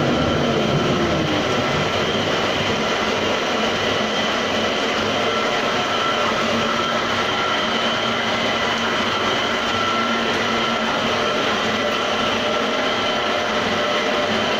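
Homemade motor-driven tofu-straining machine running: a steady whirring hum with several constant tones. A tone slides down in pitch during the first second or so.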